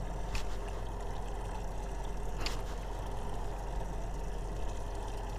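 Steady low hum of a fishing boat's motor running at rest on calm water, with two faint clicks, one near the start and one about halfway through.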